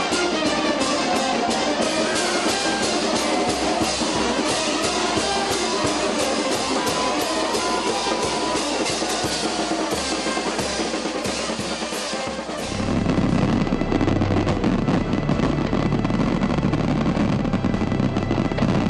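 Street brass band playing a march, with a drum beating about four times a second. About thirteen seconds in, the melody gives way to a dense low rumble of fireworks going off.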